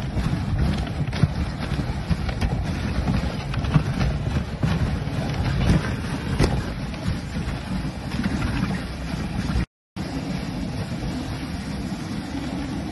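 Dog sled running over packed snow behind a husky team: a steady scraping hiss from the runners with light crackles, plus wind on the phone's microphone. The sound cuts out for a moment near ten seconds in.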